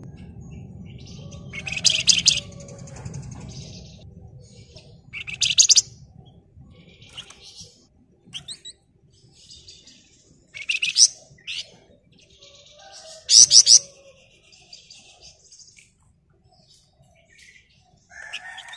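Flamboyan songbird singing in short, loud bursts of rapid, harsh, high chattering (the dense 'ngebren'/'nyerecet' trill), four bursts with softer high calls between them.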